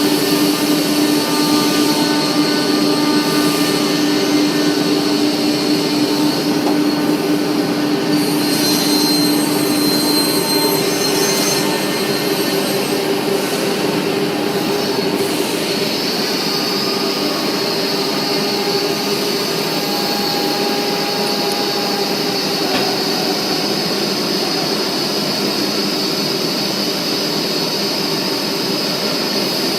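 Industrial horizontal panel saw running: a loud, steady machine noise with a high whine, its tone shifting about halfway through.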